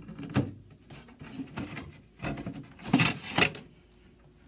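Wooden dresser drawer parts being handled as the drawer is taken apart: a few knocks and scrapes of wood on wood, the loudest two close together about three seconds in.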